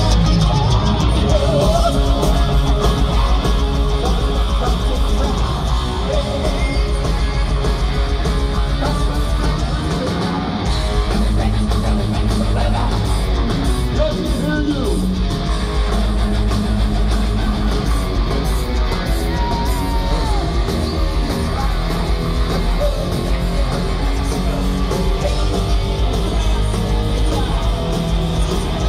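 Live heavy metal band playing loud, with distorted electric guitars, drums and a singer's voice, heard from within the concert audience.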